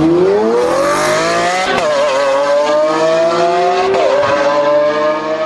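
Race car engine accelerating hard, its pitch climbing steadily, dipping at a gear change about two seconds in and again about four seconds in, then climbing again.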